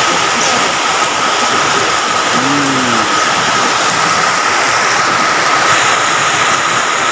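Heavy rain pouring down in a loud, steady downpour, with a thin steady tone under it and a short low tone about two and a half seconds in.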